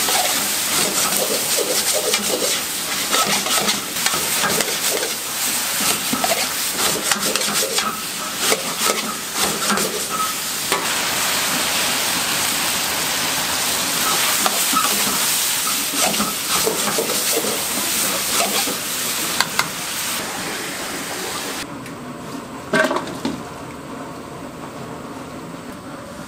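Eggplant and onion sizzling as they are stir-fried in a wok over a gas flame, a metal ladle clacking and scraping against the pan. About three-quarters through, the sizzling cuts off suddenly, leaving quieter kitchen noise with one sharp knock.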